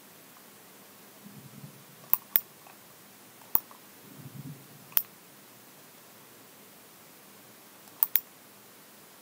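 Computer mouse clicking: a quick double click about two seconds in, single clicks a second or so apart after it, and another quick double click near the end.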